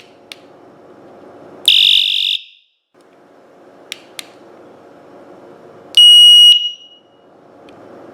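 Electronic skull bicycle horn sounding two of its four alarm sounds: a short, harsh, buzzing blast a little under two seconds in, then a steady high-pitched beep about six seconds in, each lasting under a second. A few sharp clicks fall between them.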